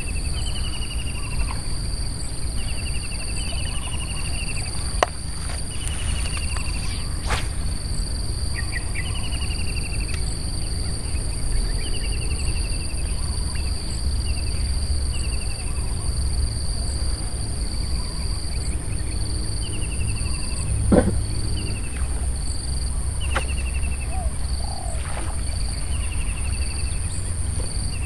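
Rural outdoor ambience: a steady high insect drone, with a short falling chirp repeating every two seconds or so, over a low steady rumble. A few faint clicks and a brief rising sound come through about three-quarters of the way in.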